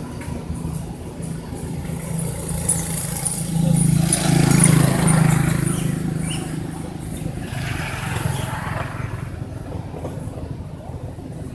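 A motor vehicle's engine running nearby, growing louder to a peak about halfway through and then fading away, as if passing by.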